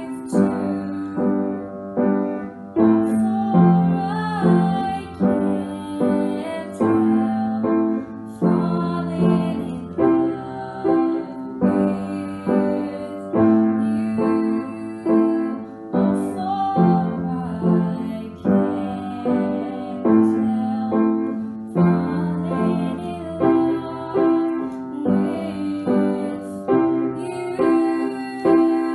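A girl singing while accompanying herself on an upright piano, the piano chords struck about once a second.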